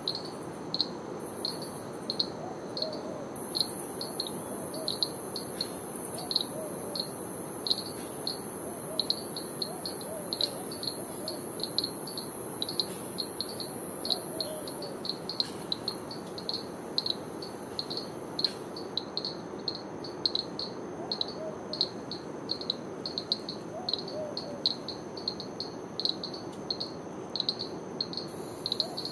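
Rainforest insects: a steady run of high chirps, two or three a second, and a shrill high buzz that starts about three seconds in and cuts off about halfway through. Faint low calls come now and then under them.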